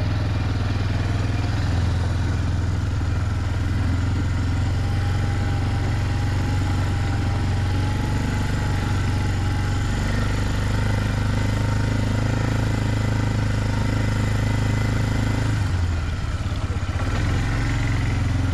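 Four-wheeler (ATV) engine running steadily while it is ridden slowly along a rutted dirt road, easing off briefly near the end.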